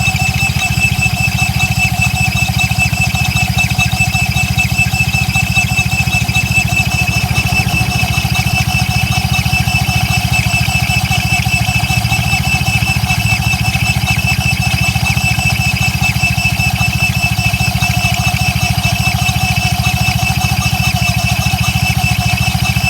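Suzuki Address V125 scooter's single-cylinder engine running steadily at idle, with a constant high squeal from the CVT drive. The squeal comes from the centrifugal clutch, whose torque cam was rusted and sticking; replacing the clutch cured it.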